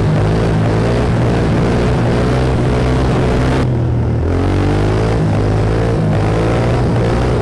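Honda dirt bike's engine running under throttle while riding, its pitch climbing again and again as it revs up. The engine briefly eases off about four seconds in, then climbs once more.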